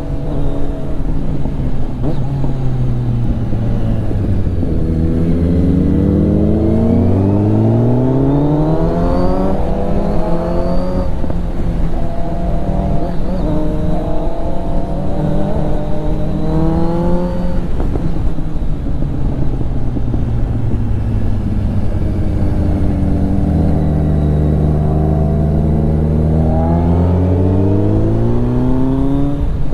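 Kawasaki Z900 inline-four engine heard from the rider's seat at road speed, its pitch rising several times as the throttle opens and dropping back between, over steady wind noise.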